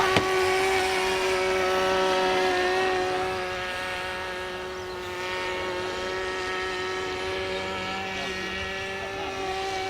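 Small engine of a radio-controlled model aircraft built as a flying lawn mower, buzzing at a steady pitch in flight. It grows fainter from about three seconds in, and a sharp click sounds right at the start.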